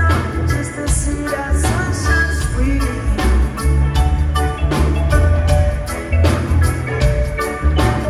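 Live band playing an instrumental passage: heavy bass and regular drum hits with melodic lines over them.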